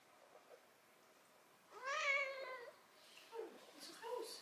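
Six-month-old calico kitten giving one drawn-out meow, about a second long, that rises and then falls in pitch, a little under two seconds in.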